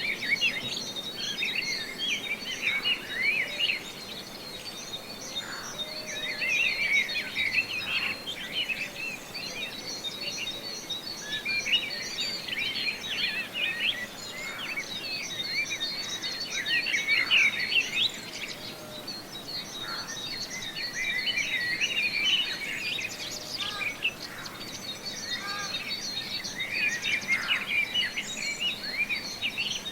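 Countryside daytime ambience: many songbirds chirping and singing in overlapping bursts, over a steady, evenly pulsing insect chirping from crickets.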